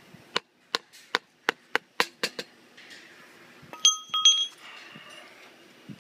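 Eight quick hammer taps, metal on metal, on the shaft at the hub of a combine reel's wheel, about three a second. About four seconds in come two short ringing metallic clinks.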